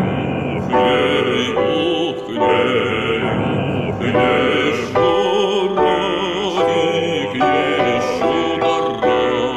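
A singing voice with strong vibrato holds notes over music, moving to a new note about every second.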